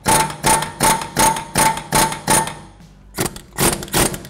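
Pneumatic air chisel hammering in short repeated bursts, about three a second, against the steel flange of a pressed-in front lower ball joint to drive it out of a Volvo XC90's steering knuckle. Each burst has a metallic ring. The bursts pause briefly about two and a half seconds in, then start again.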